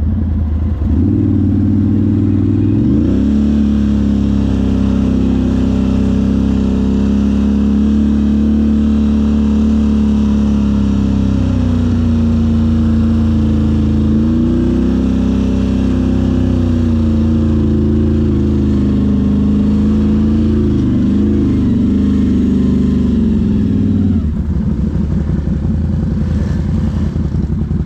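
ATV engine revving up about a second in and running under throttle, its pitch rising and falling a few times, then easing off about 24 seconds in.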